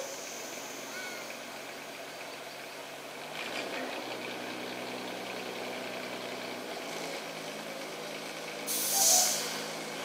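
Diesel engine of a loaded log truck running at crawling speed, its pitch shifting slightly twice. Near the end a short, loud hiss of air brakes.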